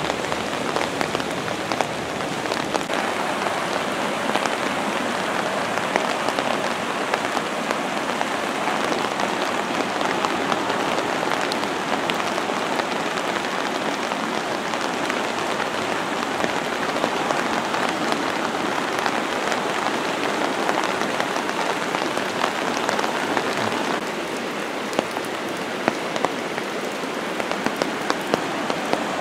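Steady rain falling, a continuous hiss with many small sharp drop ticks; it drops slightly in level near the end.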